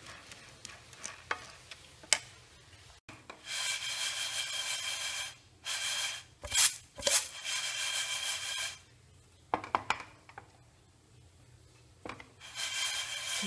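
Split moong dal dry-roasting in a nonstick pan, stirred and scraped with a spatula. There are a few light ticks at first, then two long scraping runs from about three to nine seconds in. Several sharp taps of the spatula on the pan are scattered through, and it goes quieter near the end.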